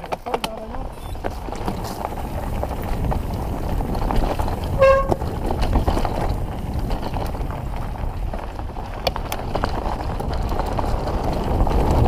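Mountain bike riding over a rocky trail: steady tyre and wind rumble with scattered rattling clicks from the bike. About five seconds in there is a short honk-like squeal.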